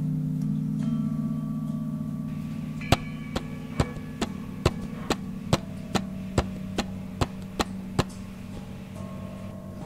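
Soundtrack of a sustained low humming drone with fainter ringing tones above it. About three seconds in, a run of about a dozen sharp ticks begins, roughly two a second, and stops near eight seconds.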